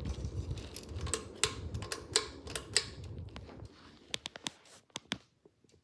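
Ceiling fan running with a low rumble, broken by a series of sharp clicks and knocks. The rumble stops after about three and a half seconds, leaving a few scattered clicks.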